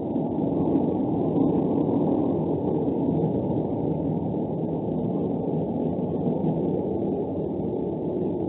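A loud, steady low rumble, mostly deep with no clear rhythm, recorded through a security camera's microphone.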